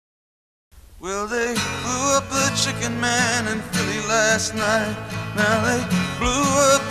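Dead silence, then about a second in a country-style song starts: a voice singing with vibrato over guitar and bass.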